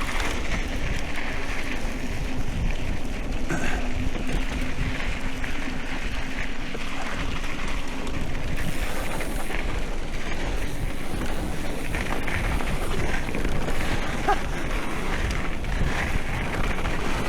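Wind rushing over a camera microphone during a mountain-bike ride.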